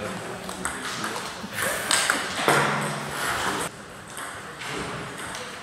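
Table tennis rally: a celluloid-type plastic ball clicking off paddles and table in a reverberant sports hall, with a louder burst and a raised voice around the middle.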